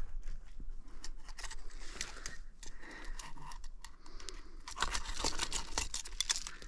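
Scattered clicks and scrapes of fishing pliers working a hook free from a tarpon's bony jaw, with the landing net rustling; the clicking gets busier in the last two seconds.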